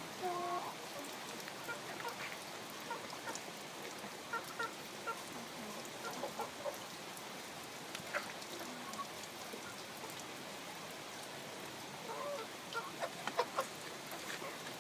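Chickens clucking and giving short, faint calls now and then, over a steady background hiss. A few sharp clicks come close together near the end.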